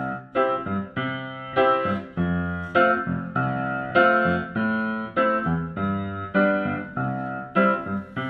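Background music: a piano plays an instrumental intro, striking chords about twice a second, each one fading before the next.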